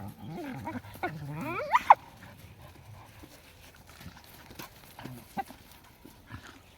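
An animal calling: a few pitched calls in the first two seconds, the last one rising sharply in pitch, followed by faint scattered clicks and taps.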